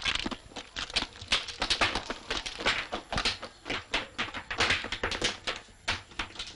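Footsteps of two people walking down cobbled stone steps, hard soles clacking on the stone in a quick, uneven run of knocks.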